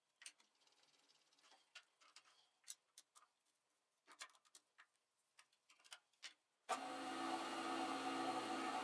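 Light clicks and clinks of small steel parts being handled and seated in a V-block in a milling vise. About two-thirds of the way through, the mill-drill's spindle starts suddenly and runs steadily with a motor hum.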